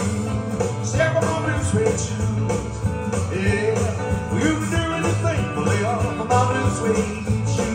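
A man singing live into a microphone over a recorded backing track through a PA speaker, with a steady, repeating bass line.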